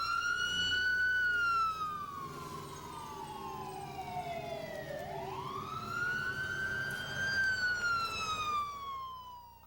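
A siren wailing through two slow cycles, each a quick rise in pitch followed by a long falling tone, the second rise coming about five seconds in, over a low steady hum.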